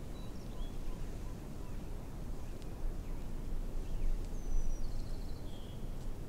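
Steady low outdoor rumble with a few faint, high, small-bird chirps, and a brief whistle and trill about four to five seconds in.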